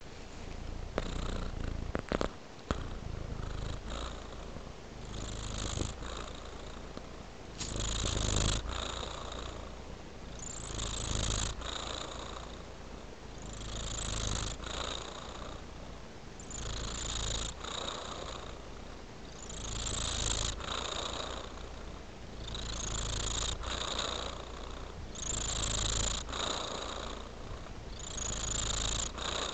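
Domestic tabby cat purring close up, the purr swelling and easing with each breath about every three seconds. A few sharp clicks in the first few seconds.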